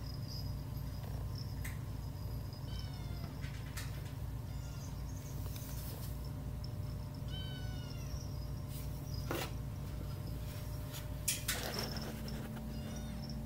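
Kittens mewing repeatedly behind glass: short, high, falling mews, a few in quick runs, strongest about halfway through. A few sharp knocks come in between, over a steady low hum.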